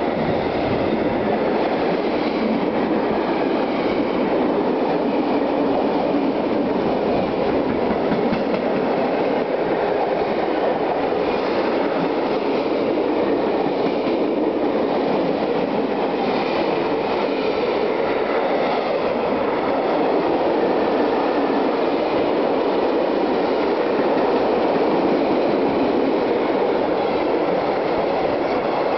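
Wagons of a mixed freight train, covered wagons, tank wagons and flat wagons, rolling past at speed. Their steel wheels make a steady rumble on the rails.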